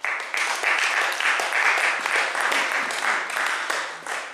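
Audience applauding: a dense clatter of many hands clapping that starts abruptly and dies away near the end.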